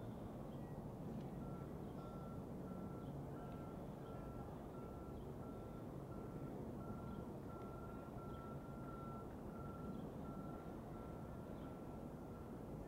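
A vehicle's backup alarm beeping in a steady string of high beeps, about two a second, starting about a second and a half in, over a low background rumble.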